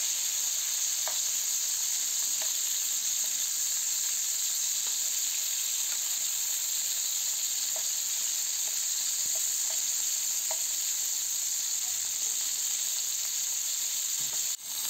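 Freshwater prawns shallow-frying in mustard oil in a nonstick pan: a steady sizzle with a few faint ticks scattered through it, as a wooden spatula turns the prawns.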